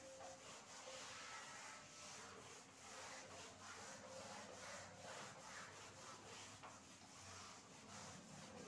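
Whiteboard eraser rubbing across a whiteboard in repeated quick back-and-forth strokes, a faint scratchy swishing as the board is wiped clean.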